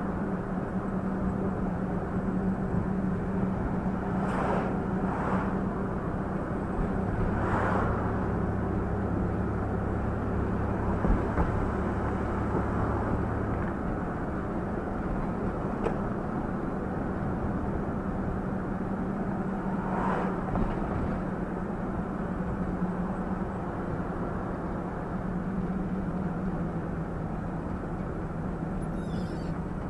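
Steady engine hum and tyre noise heard from inside a moving vehicle's cabin.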